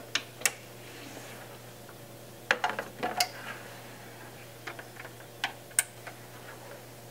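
Scattered sharp clicks and light knocks of Ethernet cable plugs being pushed into ports and small metal AV encoder and decoder boxes being handled on a desk, in a few short clusters.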